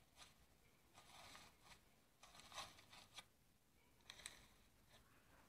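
Iceberg slime crackling faintly as fingers press into its dried crust, in several short crunchy bursts.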